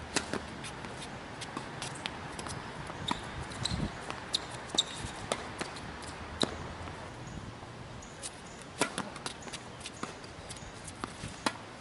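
Tennis rally on a hard court: sharp pops of racquets striking the ball and the ball bouncing, about a dozen spaced irregularly, the loudest near the start and about six seconds in.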